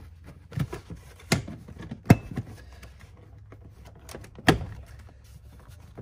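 Door trim panel being pulled straight up by hand: several sharp clicks and knocks as its retaining clips pop loose, the loudest about two seconds in.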